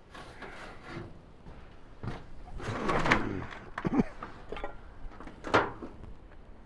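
Boards and debris of a collapsed barn roof clattering and scraping underfoot as someone steps across them, with a longer scrape a few seconds in and a couple of sharp knocks after it.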